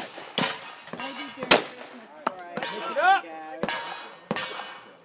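Shotgun shots fired in quick succession, about five sharp reports roughly a second apart, with metallic clangs as steel knockdown targets are hit.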